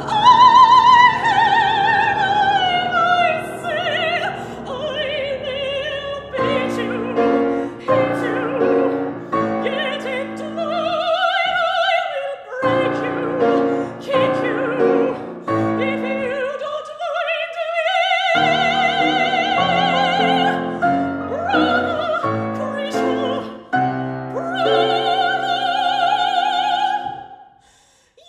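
A woman singing in a classical operatic voice with wide vibrato, accompanied by a grand piano. It opens on a loud high note that slides downward, the phrases are parted by short breaks, and the sound fades away briefly just before the end.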